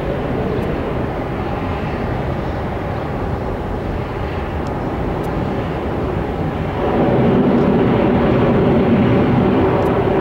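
Airbus A320's twin jet engines at takeoff thrust, a steady roar as the airliner lifts off and climbs away, growing louder about seven seconds in.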